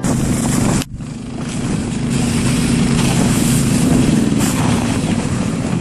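Small petrol engine of a motorized snow tow running steadily while it pulls a train of sleds over snow, with a strong steady hiss over it; the sound drops out for a moment about a second in.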